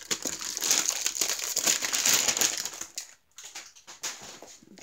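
Clear plastic bag crinkling as a rolled diamond painting canvas is slid out of it, dense crackling for about three seconds, then a few quieter rustles.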